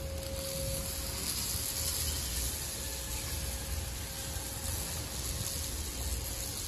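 Portable lightweight electric wheelchair driving forward across a tiled floor: its drive motors and wheels running with a steady mechanical whirr.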